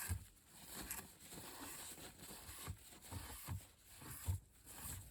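Soft tissue being wiped and rubbed across the roof of an OO gauge model locomotive to work in the weathering wash, a faint uneven rubbing with a few light handling knocks.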